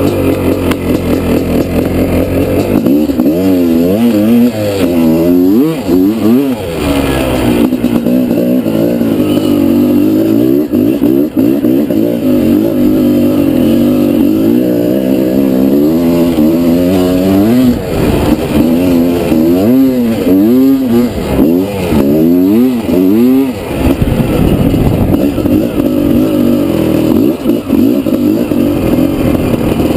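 Honda CR500R's single-cylinder two-stroke engine, ridden hard, its revs rising and falling over and over as the throttle is worked, with a fast run of blips about two-thirds of the way through.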